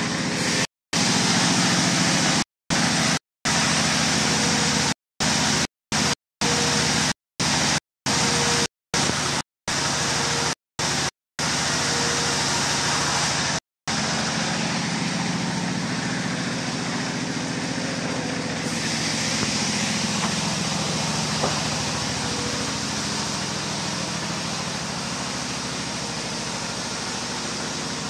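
Sawmill machinery running steadily: an engine drone under a broad, hissing noise. The sound cuts out abruptly more than a dozen times in the first half, then runs on unbroken with the drone's pitch slowly shifting.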